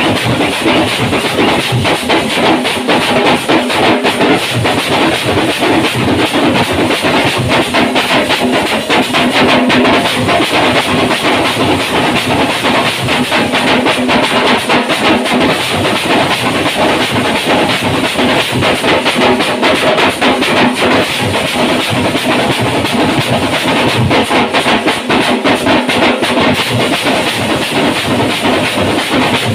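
Several parai frame drums beaten fast and hard with sticks together: a loud, dense, unbroken clatter of strokes.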